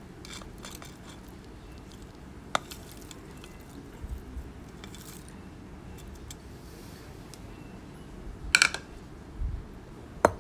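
A plate clinking against a stone mortar as fried chillies, shallots, tomatoes and anchovies are tipped from it, with a few light clicks and a louder clatter of dishware about eight and a half seconds in.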